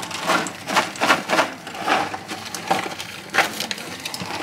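Soya chunks packaging being handled and opened: irregular crinkling and crackling, with several sharp crackles.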